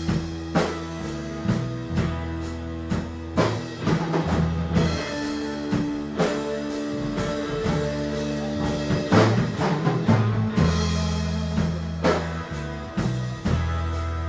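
Live band playing a song: solid-body electric guitar, sustained bass notes and a drum kit keeping a steady beat.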